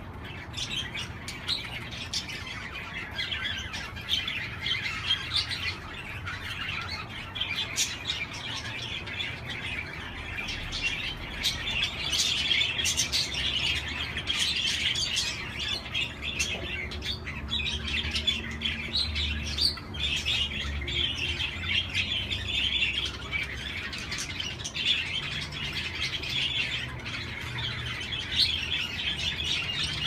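A flock of budgerigars chattering continuously, a dense mix of warbling and many short, sharp calls.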